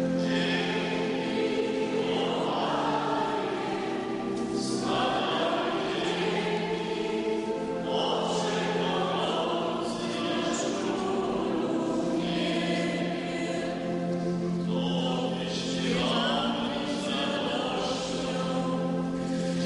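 Church congregation singing a hymn together in long sung phrases, with low notes held steadily underneath.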